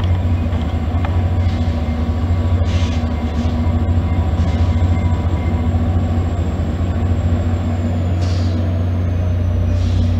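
Diesel locomotive of an arriving passenger train running with a steady, loud low hum as it approaches. A faint high whine slowly falls in pitch near the end.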